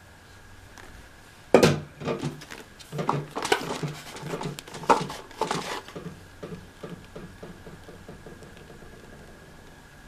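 Plastic parts of a switched-off Makita CL107FD cordless vacuum knocking and rattling as they are handled and pulled apart. A sharp click comes about a second and a half in, then irregular clacks for several seconds, then lighter taps that fade away.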